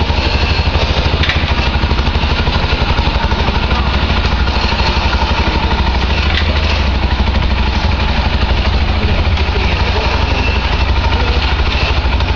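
A motor or engine running steadily, with a rapid, even pulse and a strong low hum.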